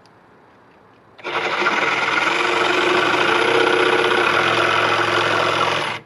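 Milwaukee M18 cordless jig saw cutting plywood: the motor starts about a second in and runs loud and steady under load, the blade chattering through the sheet, then stops abruptly near the end.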